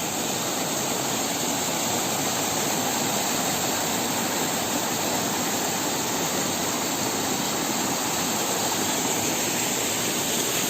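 Buchilo waterfall: steady rush of falling water, an even unbroken roar.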